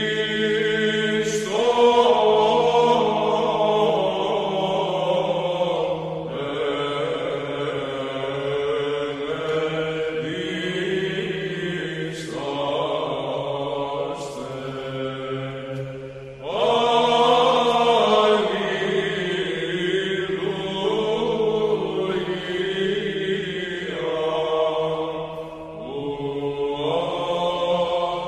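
Slow chanted vocal music in long held phrases over a steady low drone note.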